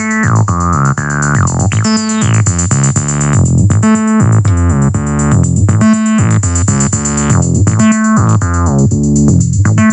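Acid house jam: a 303-style bass synthesizer (Behringer TD-3) plays a repeating bassline while its resonant filter sweeps the tone up and down, over a drum machine beat.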